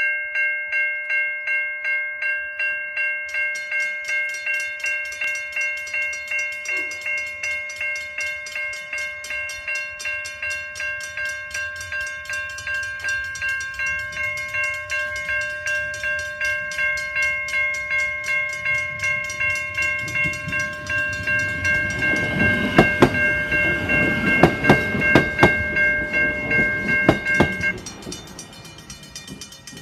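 Level crossing warning bell ringing in rapid strokes, about two a second. In the last third a train passes over the crossing with its wheels clacking over the rail joints. The bell stops suddenly near the end.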